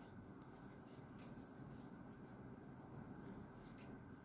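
Faint scratching and scattered light ticks of a crochet hook drawing yarn through a puff stitch, over a steady low hiss.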